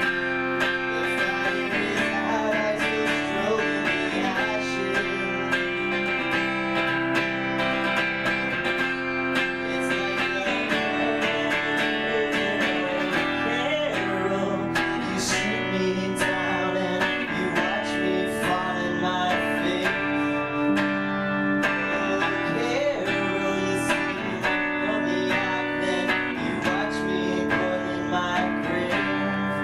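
Live band playing an instrumental passage of a rock song, led by strummed guitars, with no drums.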